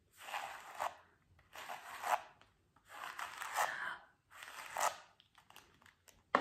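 Hairbrush bristles brushed across the palm of a hand: four brushing strokes a little over a second apart, then a few faint clicks near the end.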